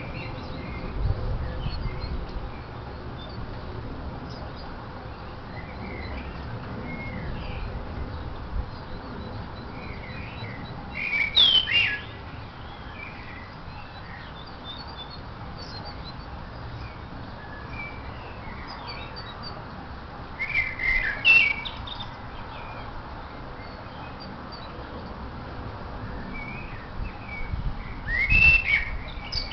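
Garden songbirds chirping: short high calls scattered throughout, with three louder clusters of quick, gliding calls about 11, 21 and 28 seconds in.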